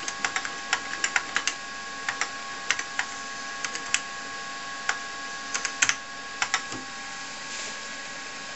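Keys of a TRS-80 Model 4 keyboard clicking as numbers are typed in, in irregular keystrokes that stop about six and a half seconds in. A steady faint whine runs underneath.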